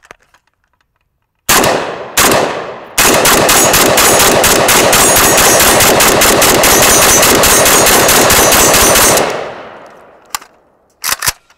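FB Radom Beryl 5.56 semi-automatic AK-pattern rifle firing: two single shots, then a long, fast string of shots lasting about six seconds that stops abruptly. A few short sharp clicks follow near the end.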